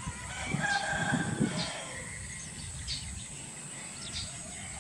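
Outdoor ambience: short bird chirps here and there over a steady high insect drone, with a brief indistinct louder sound about half a second in.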